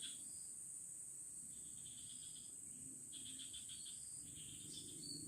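Insects chirping faintly: a steady high buzz with several short pulsed trills, like crickets.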